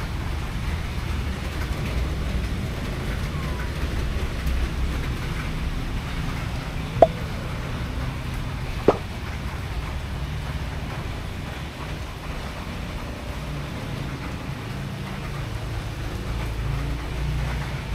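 Steady low background rumble, like distant traffic, with two short sharp clicks about two seconds apart near the middle.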